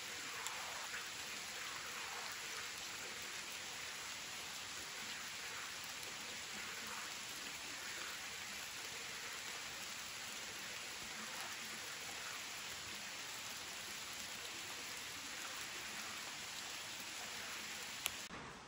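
Steady rain falling, an even hiss with no other sound over it. A brief click near the end.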